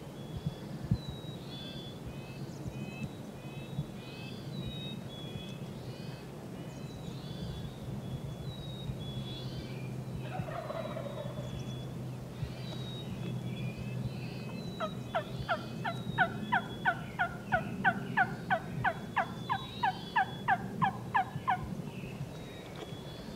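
Wild turkey yelps: a long run of about twenty loud, evenly spaced calls, about three a second, starting about fifteen seconds in, over steady songbird chirping.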